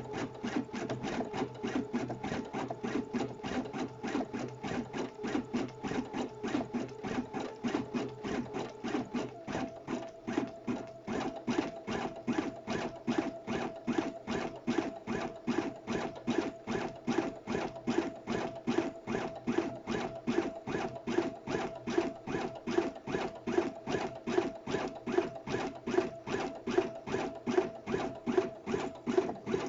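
Brother Innovis 880E embroidery machine stitching steadily, a rapid even run of needle strokes at about four a second over a low running hum. The hum drops in pitch about nine seconds in.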